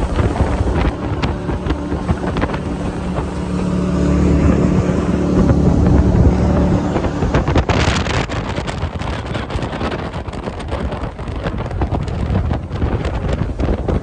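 Jet boat engine running hard on the river, its note rising about halfway through and then easing off, with wind buffeting the microphone throughout.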